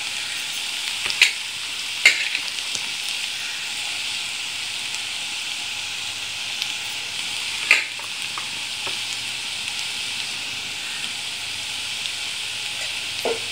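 Anchovies and ground coconut masala sizzling gently in coconut oil in a nonstick pan over a low flame: a steady, even hiss. A few sharp clicks come through, about a second in, at two seconds and again near eight seconds.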